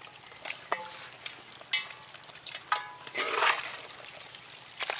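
A stainless steel bowl scraping and clinking against a woven bamboo basket as it scoops up a heap of small wet fish, with the fish rustling and slithering. Several sharp clinks, some with a short metallic ring.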